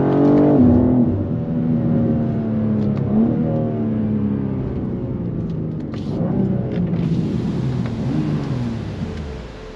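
Stock-exhaust BMW M2 G87's twin-turbo straight-six running while driven. Its pitch drops sharply about half a second in, holds and wavers, then falls away near the end as the revs come down.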